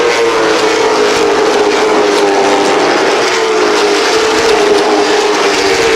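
NASCAR Whelen Modified race cars running at speed, their V8 engines in a loud, steady high-pitched drone that sinks slightly in pitch.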